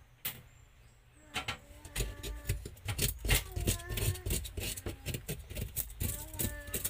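Knife scraping the scales off a tilapia on a plastic cutting board: a quick, irregular series of sharp rasping strokes that starts about a second in, with faint voices in the background.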